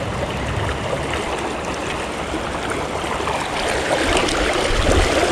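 River water flowing steadily, the continuous rush of a shallow stream current.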